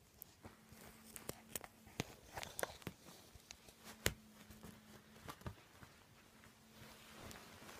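Faint, scattered taps, clicks and soft rustling as a cat plays with a catnip toy on bedding, with one sharper click about four seconds in.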